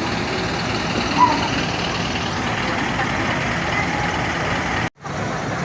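Steady running drone of a road vehicle's engine and road noise. It cuts out sharply for an instant near the end.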